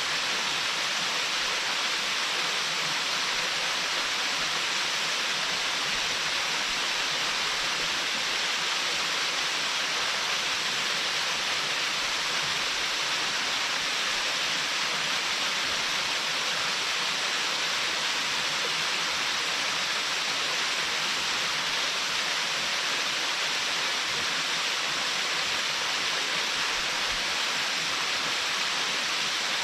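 Waterfall pouring onto rock with no plunge pool: a steady, even rush of falling water.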